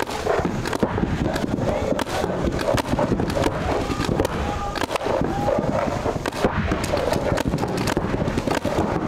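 Paintball markers firing rapid, continuous strings of shots, sharp cracks packed closely together.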